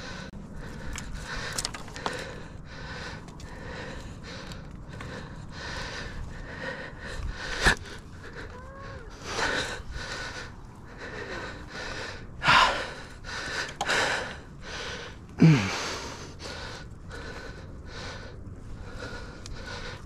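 A man's heavy breathing close to the microphone as he strains, with several loud exhales in the second half, over branches rustling. A sharp snap comes about eight seconds in.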